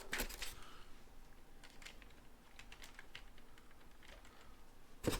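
Hard plastic toy parts clicking and tapping as the orbs are pressed onto a vintage White Tiger Zord: a quick run of clicks at the start, a few faint ticks in the middle and a sharper snap near the end.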